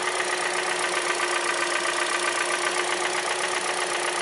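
2014 Hyundai Elantra's 1.8-litre four-cylinder engine idling with a steady, rapid tapping, which the owner identifies as piston slap.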